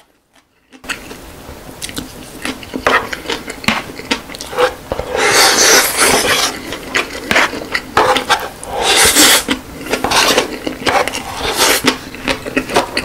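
Wooden spoon scraping and scooping against a bowl, starting about a second in, with several louder scraping strokes as the bowl is tilted and shovelled into the mouth, with mouth sounds of eating close to the microphone.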